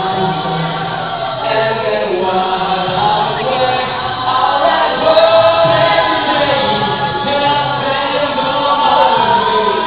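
Vocal group singing a song a cappella, a lead voice over several backing voices in harmony with a low bass part.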